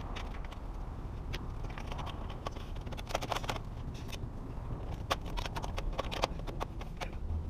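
Aluminum flashing being handled and pressed into place around a window frame: irregular sharp metallic clicks and light taps, coming in clusters a few seconds in and again later, over a steady low rumble.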